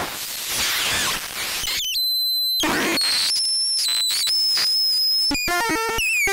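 Particle Smasher + handmade noise synthesizer and sound processor, played by hand on its knobs and pads. A harsh hiss gives way about two seconds in to a clean high whistle-like tone. Then come shrill tones that jump between pitches over noise, and near the end a quick run of falling stepped tones.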